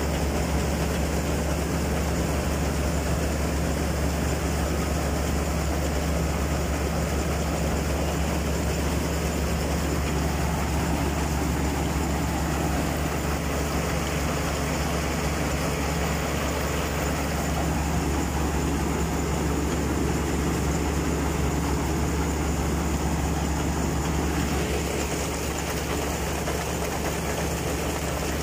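Preet 949 combine harvester's four-cylinder diesel engine running at a steady speed.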